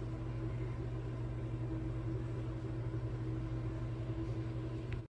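A steady machine hum: a low drone with a fainter, higher tone above it over an even hiss.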